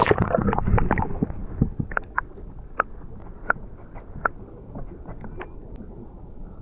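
Muffled underwater sound, heard through a microphone dipped into the water: a low rumble with short bubbly clicks and pops, a flurry in the first second, then single ones every half second or so.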